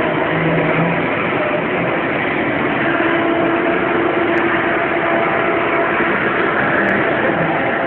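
Welding: a steady, even hiss with a low hum underneath, unchanging throughout.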